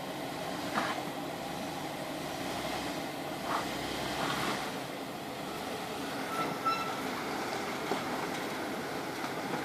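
Off-road 4x4 engine running steadily at low revs while crawling over rock, with a few short knocks and a brief high squeak near the end.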